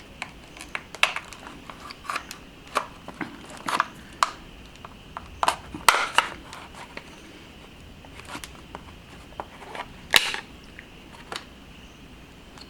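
Plastic case of an air conditioner remote control being opened: irregular sharp clicks and snaps of plastic, the loudest about six and ten seconds in.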